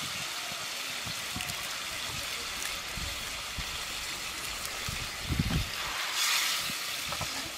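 Mrigal fish pieces sizzling and bubbling in oily tomato gravy in an iron karahi over a wood fire. Low knocks around five seconds in and a louder burst of sizzle about six seconds in come as the steel spatula moves the fish in the pan.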